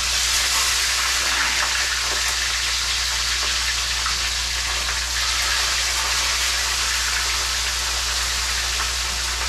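Fish frying in hot oil in a frying pan: a loud, steady sizzle.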